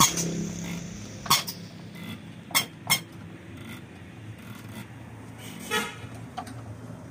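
Fiat tractor diesel injector nozzle on a hand-lever pop tester, spraying fuel in about five sharp bursts as the lever is pumped, the last with a short buzzing chatter, over a steady low hum.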